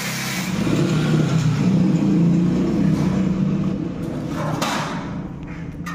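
An engine running with a low hum that grows louder for a couple of seconds and then fades, as from a motor vehicle going by.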